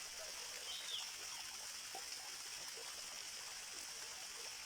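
Steady outdoor background hiss, with a short faint chirp about a second in.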